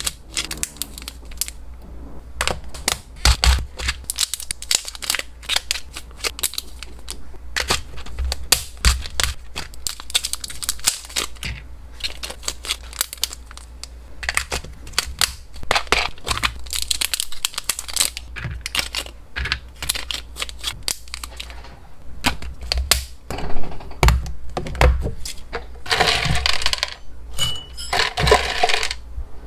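Close-up clicking and tapping of small dry hamster treats and plastic packaging being handled: tongs picking out pieces and dropping them into a plastic zip bag, plastic bags rustling. Near the end, two longer rattles as dry pellets are scooped into a clear plastic box.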